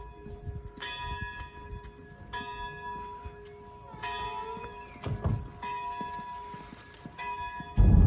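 A church bell tolling, struck five times at an even pace of about one strike every second and a half, each strike ringing on with the same pitch. A soft thump comes about five seconds in.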